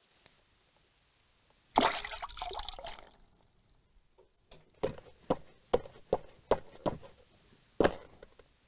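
Foley water and wet-material sounds: a sudden splashing burst about two seconds in that dies away over a second, then a quick run of about six sharp wet slaps and one last slap near the end.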